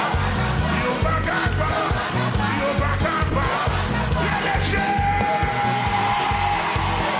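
Live upbeat worship music: a driving drum beat and heavy bass under singing, with a congregation singing and shouting along. A single long note is held about five seconds in.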